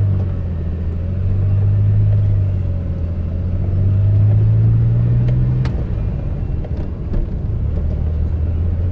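1981 DeLorean DMC-12's V6 engine, fitted with a larger-diameter aftermarket exhaust, heard from inside the cabin pulling under acceleration. The engine note climbs steadily, drops with a click at a gear change a little under six seconds in, then starts climbing again.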